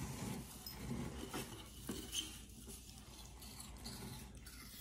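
Miniature poodle chewing a piece of apple: faint, wet chewing with scattered small clicks, busiest in the first couple of seconds.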